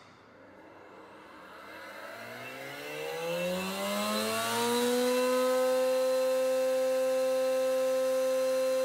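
Weinig Unimat 1000 moulder's cutter spindle motor starting up: a whine rising in pitch as the spindle spools up, levelling off about five seconds in to a steady hum at full speed.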